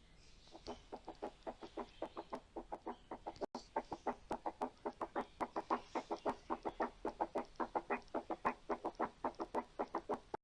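Recorded heart sounds of a third-heart-sound (S3) gallop rhythm with a fast heart rate, heard through a stethoscope: a quick, even run of dull beats, about five a second, likened to a horse galloping. In a child, an S3 gallop with tachycardia is a sign of volume overload, such as a large VSD, or of congestive heart failure.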